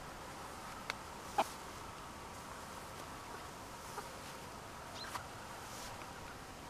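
Silkie chickens giving a few short, quiet clucks while foraging, the loudest about a second and a half in.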